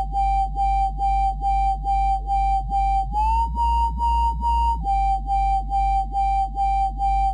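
Dubstep synth bass patch playing in a loop, pulsing in a 'wow, wow, wow' wobble about three times a second over a deep sub bass; the wobble comes from resonance raised on a low-pass filter. The held note steps up about three seconds in and drops back under two seconds later.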